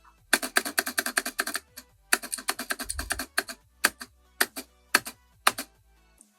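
Typing on a mechanical keyboard fitted with Razer PBT keycaps. Two quick runs of keystrokes at about ten a second, each lasting just over a second, are followed by a few single keystrokes spaced about half a second apart.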